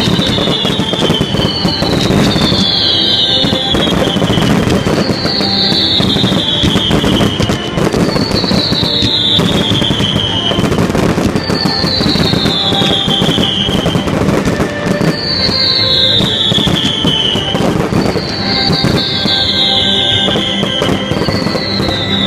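Large fireworks display: a dense run of bangs and crackling shells, with music playing alongside. Through the music, a high falling tone repeats about every two seconds.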